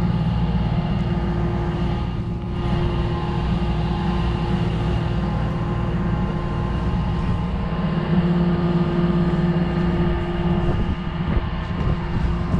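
Tugboat's diesel engine running steadily alongside, a loud drone that holds one pitch.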